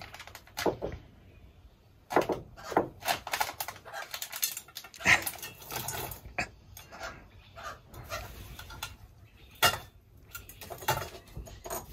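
Sulphur-crested cockatoo pecking and picking food out of a dish on a workbench: an irregular run of beak taps and clicks against the dish.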